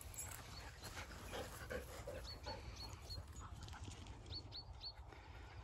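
Several dogs trotting along a grassy path: faint panting and soft rustling of paws through grass, with two short runs of small high chirps about two and four seconds in.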